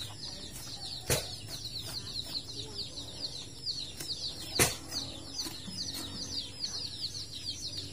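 Birds chirping steadily in rapid, high, falling peeps, several a second. Two sharp knocks come about a second in and near the middle.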